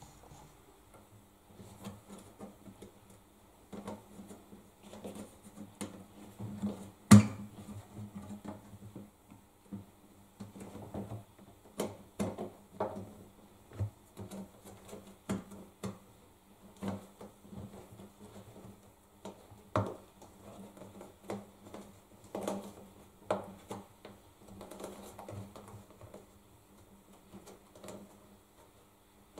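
Hands working a rubber door seal onto the front opening of a front-loading washing machine: irregular soft rubbing, taps and knocks on the cabinet, with one sharper knock about seven seconds in. A faint steady hum lies underneath.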